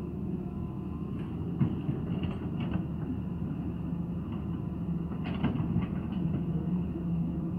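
Hitachi hydraulic excavator's diesel engine running steadily under load, with knocks and clatter as soil and clods tip from its bucket into a dump truck's bed.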